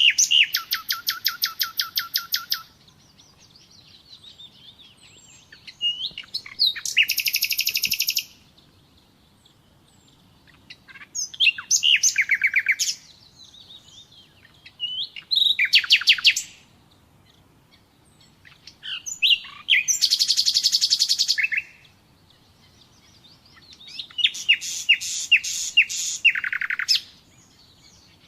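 Common nightingale singing: six separate song phrases of fast-repeated, high notes and trills, each lasting a second or two, with short pauses between them.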